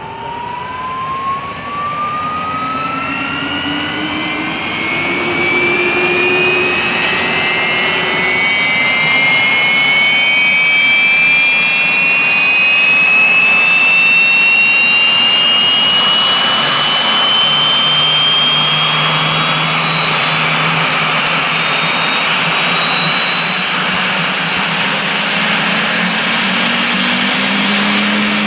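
Gazelle helicopter's Turbomeca Astazou turboshaft starting up: a turbine whine that climbs steadily in pitch as the engine spools up, growing louder over the first few seconds, then running loud and steady. A low hum joins past the middle as the rotor comes up to speed.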